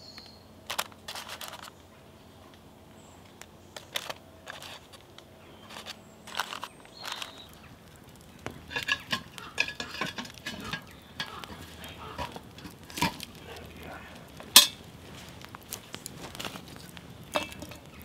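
Irregular metal clinks and knocks of a cast iron Dutch oven and its lid being handled, with one sharp, loud clank about three-quarters of the way in.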